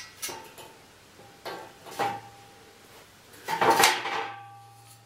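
Steel box-section straight edges being slid together, the welded flat-bar tongues knocking and scraping inside the larger section. Several metal clanks, two of them ringing briefly; the loudest comes a little over three and a half seconds in.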